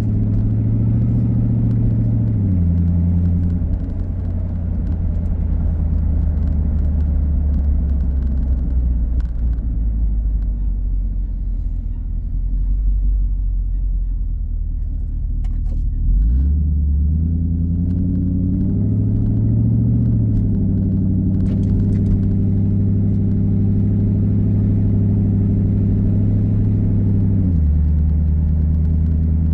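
2001 Ford Mustang GT's 4.6-litre V8 running through an exhaust with everything from the catalytic converters back removed, a loud, deep drone heard from inside the cabin while driving. The engine note steps down about two seconds in and stays low, rises sharply just past halfway as the car accelerates, then steps down again near the end.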